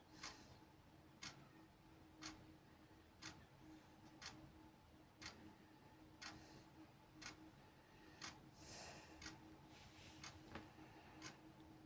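A clock ticking, a sharp tick about once a second, over a faint steady hum, with a brief soft rustle about two-thirds of the way in.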